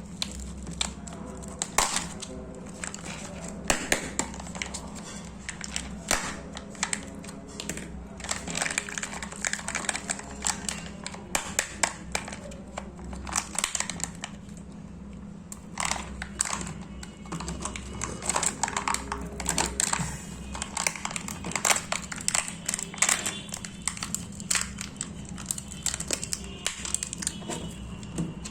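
Plastic wrappers of Kinder Joy eggs crinkling and crackling as they are handled and torn open, a dense run of sharp, irregular crackles.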